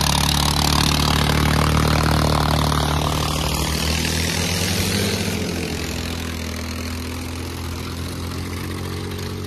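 Two diesel tractors, a Massey Ferguson and a New Holland, chained back to back and running hard against each other in a tug-of-war pull. Their engines hold a steady pitch, and the overall sound eases off gradually over the second half.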